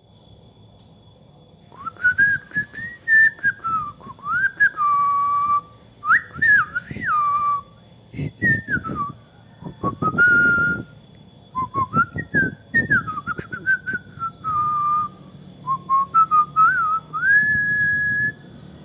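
A person whistling a slow tune, the notes sliding up and down between held tones. Scattered clicks and low handling noise sound underneath, heaviest about halfway through.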